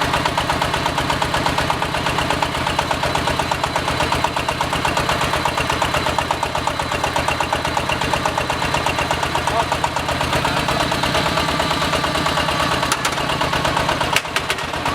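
Diesel engine of an AKL-150Y hydraulic water-well drilling rig running steadily with an even, rapid firing pulse. A couple of sharp knocks near the end.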